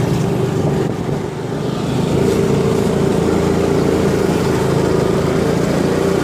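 Small motor scooter's engine running while riding along a road at moderate speed, with road and wind noise. It eases off briefly about a second in, then picks up again with a steady hum.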